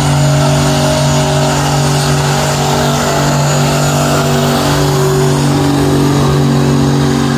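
A street-class pickup truck's gasoline engine running hard at full load while dragging a weight-transfer pulling sled. It holds a loud, steady drone with an almost constant pitch.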